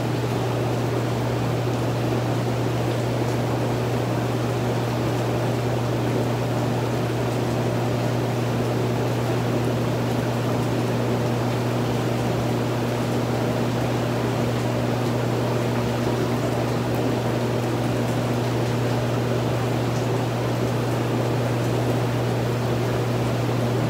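Hot tub jets running: steady churning, bubbling water over the even low hum of the jet pump.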